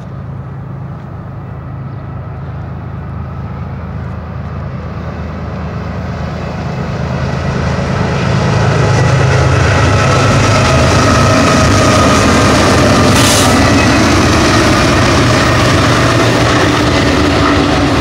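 BNSF freight train at speed: four GE diesel locomotives (ES44C4s and a Dash 9-44CW) drone louder as they approach and pass about halfway through. Then the steel wheels of double-stack container cars roll steadily on the rail.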